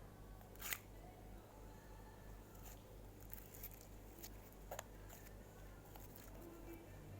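Faint sticky clicks and crackles of slime being squeezed and pulled apart by hand, a scattering of short sharp pops with the loudest about a second in, over a steady low hum.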